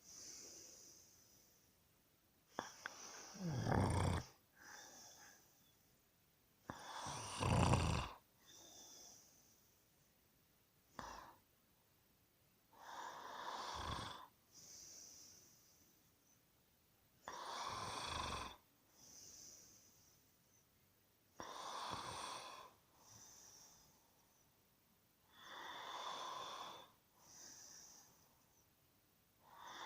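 A person snoring in sleep: a snore on each in-breath about every four seconds, with a softer breath out between. The first two snores are deeper and louder, the later ones breathier.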